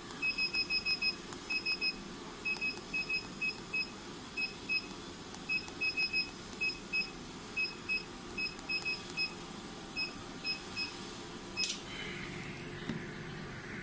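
Touchscreen control panel of a vacuum roller body-contouring machine beeping at each key press: dozens of short high beeps in quick runs as the vacuum level and time are stepped up and down. About twelve seconds in, a click and then a steady hiss as the vacuum starts.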